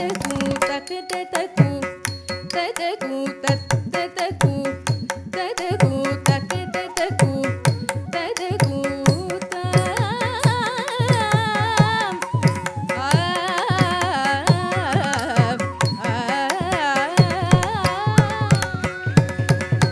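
Carnatic music accompaniment in raga Naattai, Adi tala, for a Bharatanatyam dance. Rapid mridangam strokes run over a steady drone, and from about ten seconds in a melodic line with gliding ornaments joins.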